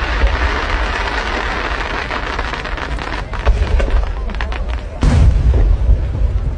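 New Year fireworks going off: a dense crackling for the first few seconds, then a rapid string of sharp pops, and a heavy boom about five seconds in, over a deep rumble.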